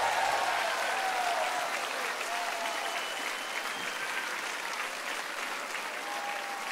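Large audience applauding at the end of a song, the applause slowly dying down.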